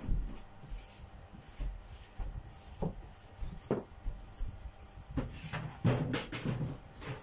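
Kitchen items being handled on a counter: a few separate light knocks, then a busier stretch of clatter and rustling from about five seconds in.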